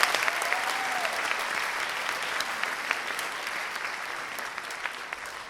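Audience applauding, strong at first and slowly thinning out toward the end.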